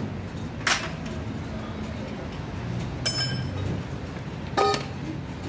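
Metal tools and engine parts clinking as they are handled: a sharp click about a second in, then two ringing metallic clinks, over a steady low background rumble.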